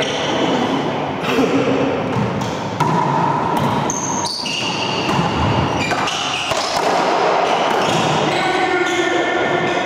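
Racquetball play on an enclosed hardwood court: repeated sharp smacks of the ball off racquets and walls, echoing in the court, with athletic shoes squeaking on the wooden floor.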